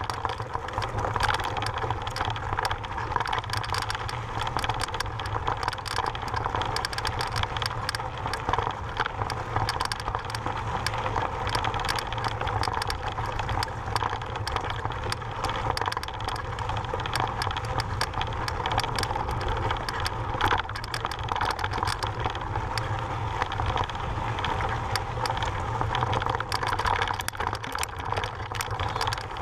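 Mountain bike riding over a loose, rocky dirt trail: knobby tyres crunching on gravel and the bike rattling with many small clicks over a steady low rumble.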